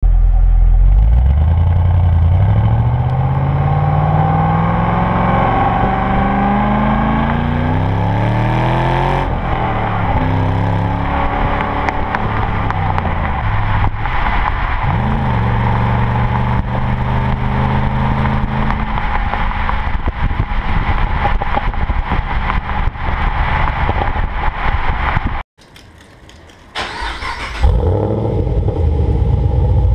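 2011 Camaro SS's 6.2-litre V8 through its stock exhaust, heard at the tailpipe: it pulls hard, the pitch climbing and then dropping at a gear change, and settles into steady cruising. After a brief quiet gap, near the end, the same engine on Dynatech headers and a Borla S-Type catback comes in loud and runs with a much deeper note.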